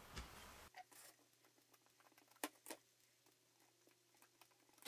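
Near silence with a few faint clicks of a hand tool against a 3D-printed plastic frame plate, two sharper ones about two and a half seconds in.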